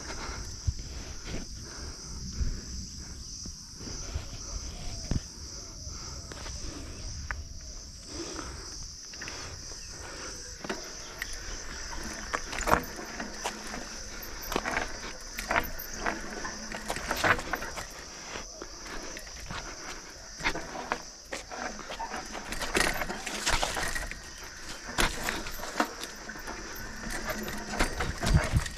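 Polygon Premium 5 mountain bike rattling downhill over a concrete path and then a rough rocky trail, its tyres and frame giving repeated sharp knocks and clatters that come thicker in the second half. A steady high insect chorus runs underneath.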